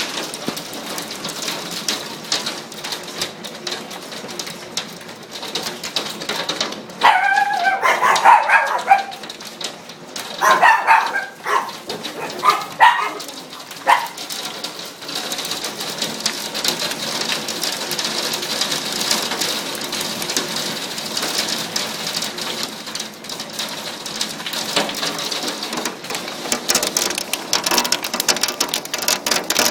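Hailstones pelting down in a dense, steady clatter of small impacts. Between about seven and fourteen seconds in, a dog barks in a few short bouts over it.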